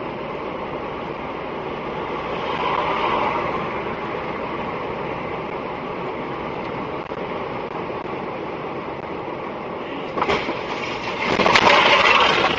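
Steady rushing vehicle and road noise, swelling a little about two to three seconds in and louder near the end.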